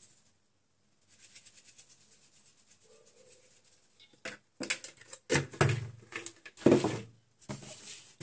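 A plastic spoon scraping and tapping in a plastic spice container while salt is sprinkled into a steel mixing bowl: a fine, rapid crackle of small ticks at first, then several louder clatters and knocks from about halfway through.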